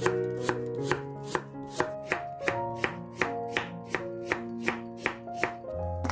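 Chef's knife slicing raw Korean radish into thin pieces on a wooden cutting board: crisp, evenly spaced knife strikes on the board, about two or three a second, stopping near the end. Background music plays underneath.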